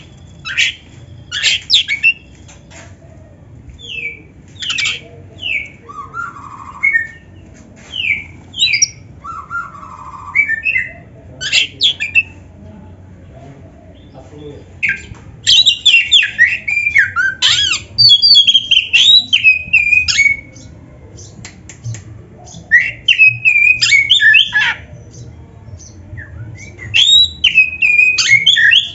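Oriental magpie-robin (kacer) singing: scattered short whistled and harsh notes at first, then loud runs of varied, rapidly changing song in the second half.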